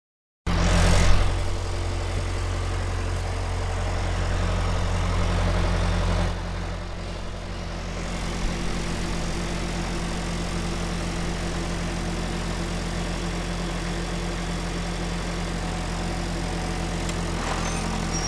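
Military tank's heavy engine running steadily, starting abruptly with a brief louder surge. About six seconds in, the engine note drops and it carries on running lower and steady, with a few faint high clanks near the end.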